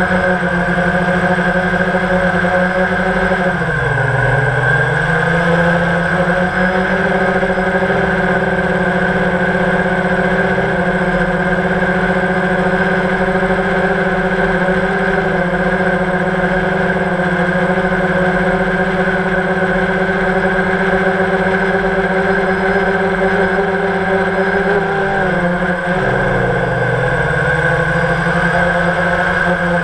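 Electric motors and propellers of a multirotor drone, heard from the camera it carries: a steady, loud whine made of several tones. Twice, about four seconds in and again near the end, the pitch dips briefly and climbs back as the motors throttle down and up again.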